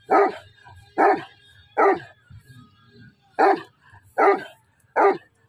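A Pakistani bully dog (Bully Kutta) barking loudly: three barks about a second apart, a short pause, then three more.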